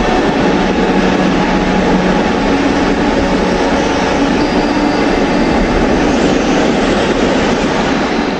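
Steady, dense rumble of a moving vehicle, added as a sound effect; it stops abruptly at the very end.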